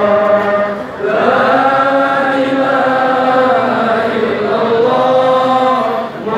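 A large crowd of men chanting together in unison, holding long drawn-out notes, with a short break about a second in and another near the end.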